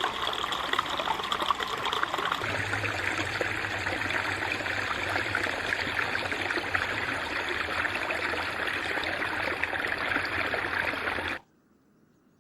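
A shallow brook babbling and trickling over stones, changing sound about two seconds in as if at another spot along it, then cutting off abruptly near the end.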